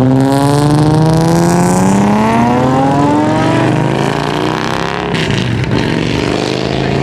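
Modified Infiniti G35 coupe's V6 engine accelerating hard in one long pull, its pitch rising steadily for about four seconds before it fades into general traffic and engine noise.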